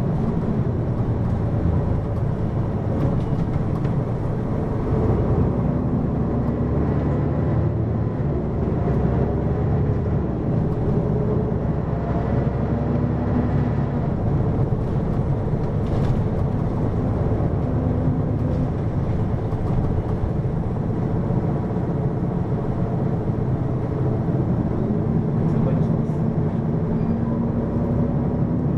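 Hino QKG-LV234N3 city bus running, heard from on board: diesel engine and drivetrain noise, steady, with the engine note shifting up and down.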